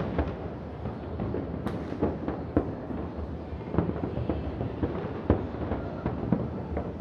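Distant aerial fireworks shells bursting in quick, irregular succession: a steady run of booms and crackles, with one sharper bang about five seconds in.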